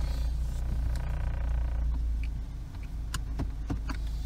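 A 2013 Ford Focus with a 2-liter engine and automatic transmission, heard from inside the cabin moving at low speed: a steady low engine and road rumble. A few light clicks come about three seconds in.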